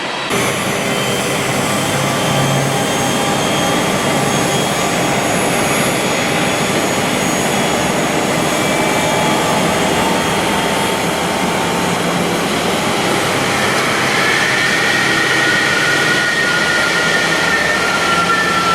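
Jet engine noise of a Boeing 777-300 heard inside the cabin: a steady rushing hiss with several whining tones. In the last few seconds one whine slowly falls in pitch.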